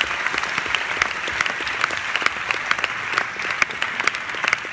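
Audience applauding steadily, a dense patter of many hands with a few sharper single claps close by.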